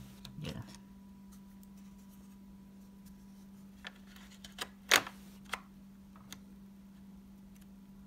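A 2.5-inch laptop hard drive in its metal tray clicking and knocking against the plastic underside of a Dell Inspiron 9400 as it is seated in the drive bay: a few light clicks about four seconds in, one sharper knock near five seconds and two fainter ones after. A faint steady hum sits underneath.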